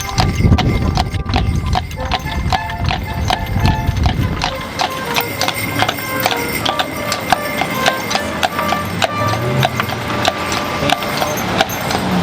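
Carriage horse's hooves clip-clopping at a steady walk, with a tune playing alongside. There is a low rumble for the first few seconds.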